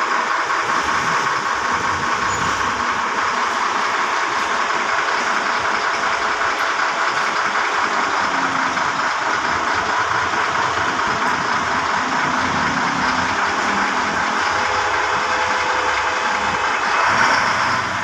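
Diesel engine of a Caterpillar wheel loader running steadily as the loader drives slowly along the road, a little louder near the end.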